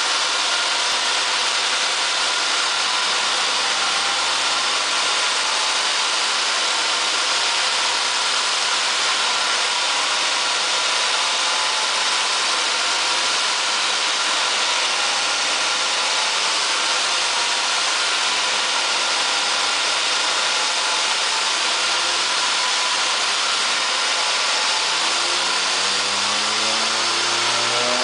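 Supercharged Porsche 944 S2 3.0-litre four-cylinder engine running steadily at low revs on a chassis dyno, then revs starting to climb over the last few seconds.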